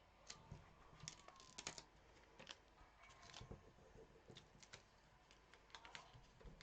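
Faint, irregular light clicks and taps from hands handling small pre-cut vinyl pieces and craft tools.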